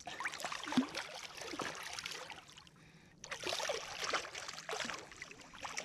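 Shallow water splashing and sloshing as a released blue catfish kicks and swims off from a hand, in two bouts with a short lull about three seconds in.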